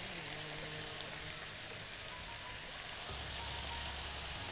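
Pieces of boneless veal frying in onion oil in a hot pan: a steady, even sizzle.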